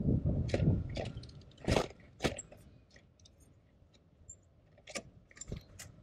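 A small bird at a seed feeder close to the microphone: a rustle of movement and wingbeats in the first second, then scattered sharp pecks and clicks on the seed and the feeder tray.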